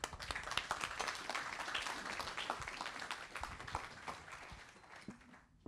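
Audience applauding: many hands clapping together, starting all at once and dying away over about five seconds.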